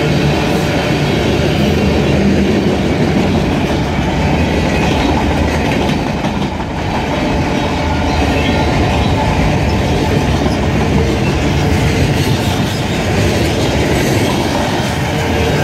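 Freight cars of a CSX freight train rolling past: covered hoppers, bulkhead flatcars and boxcars, their steel wheels running on the rails in a steady, loud rumble and rattle. The level dips briefly about six seconds in.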